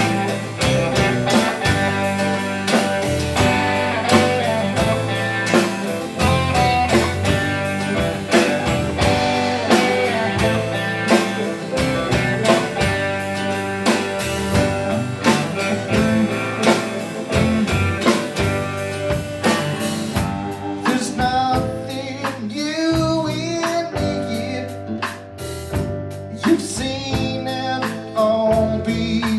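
Live rock band playing a song on electric and acoustic guitars, bass guitar, drum kit and keyboard. A man's lead vocal comes in about twenty seconds in.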